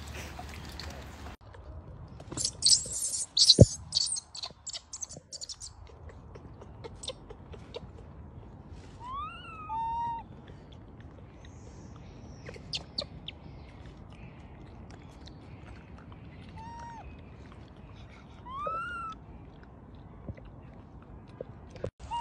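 A loud crackling rustle with a sharp knock in it, a few seconds in. Later come four short high coo calls from a young macaque, each rising or arching and then levelling off, in two pairs.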